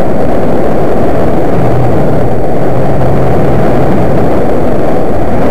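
A loud, steady rumbling noise, pinned at full level as if overloading the recording, mostly low-pitched with no clear engine tone. It cuts off abruptly at the end.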